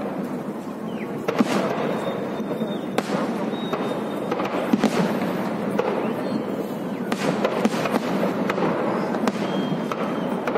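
Aerial fireworks shells bursting: sharp bangs at irregular intervals, about one a second, over a dense continuous crackle and rumble of the display.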